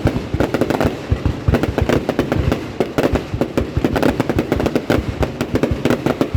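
Fireworks display going off in rapid succession: a dense, continuous barrage of booming bursts and sharp crackles, several every second.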